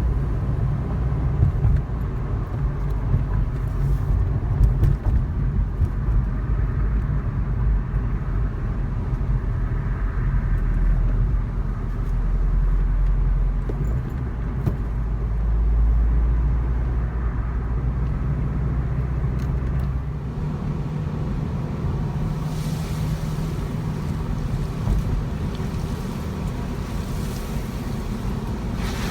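Subaru WRX STI (VAB) on the road, its turbocharged EJ20 flat-four running under a steady low rumble of engine and road noise. The drone changes about two-thirds of the way through, when the deepest rumble falls away.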